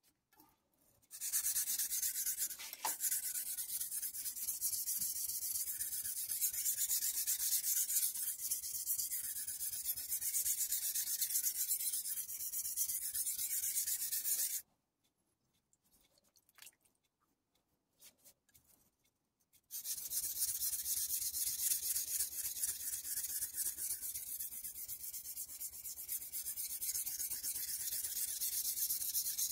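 A Kai Shun chef's knife blade scraping back and forth on a water-soaked Kai combination whetstone: a continuous gritty, hissing rub. It stops for about five seconds in the middle, then starts again.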